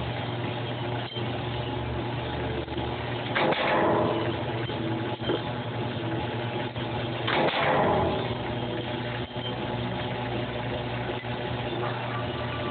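Stamping press running with a steady motor hum, cycling twice about four seconds apart; each stroke is a loud burst lasting about a second as a copper spoon blank is formed into the lure's shape. Light clicks of blanks being handled fall between the strokes.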